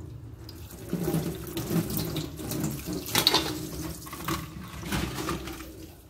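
Tap water running and splashing onto raw crabs as they are rinsed and rubbed by hand over a stainless steel sink, with irregular splashes and handling noises, loudest a little past the middle.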